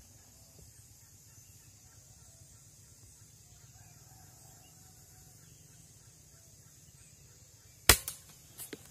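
A single rifle shot near the end: one sharp, loud crack, followed by a few fainter clicks. Faint bird calls run underneath before it.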